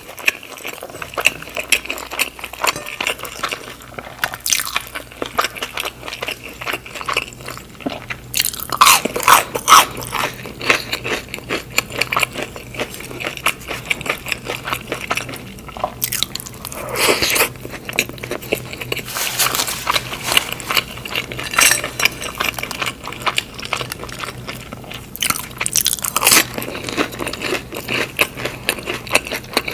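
Close-miked eating: crisp, crunchy bites and steady chewing, with several louder crunching bites spread through.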